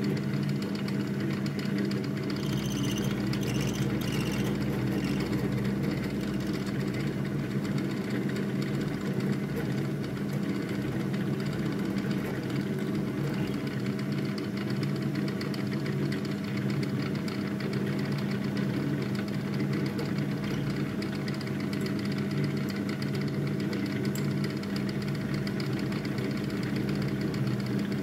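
Milling machine spindle running steadily, its freshly resharpened 6 mm end mill cutting a test slot in a metal block: a constant mechanical hum.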